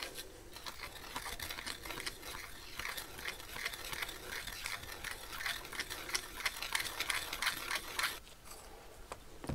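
Gloved hands handling copper pipe fittings: a busy run of small clicks, scrapes and rustles of metal on metal and of glove fabric, easing off about a second before the end.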